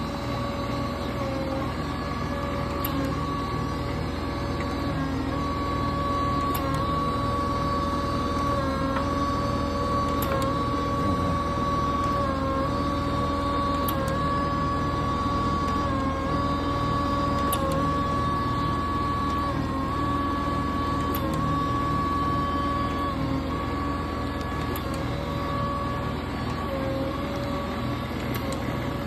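Jones & Shipman horizontal surface grinder running: a steady motor hum and whine, broken about every three and a half seconds by a click and a brief dip in the whine as the table reverses its travel.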